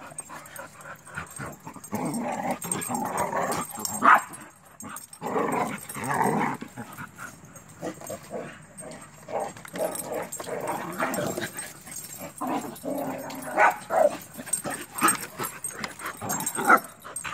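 Several dogs play-fighting, making near-continuous rough vocal noises broken by a few sharp, loud barks.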